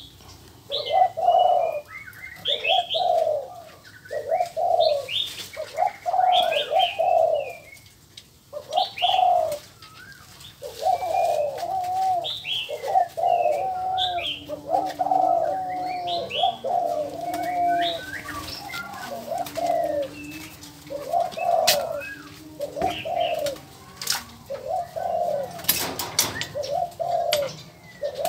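Spotted doves cooing over and over, a low rolling coo about once a second, with higher chirps and whistles from other small birds.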